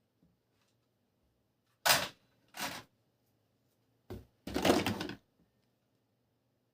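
Plastic toy parts being handled, clattering in four short bursts, the last one longer than the others.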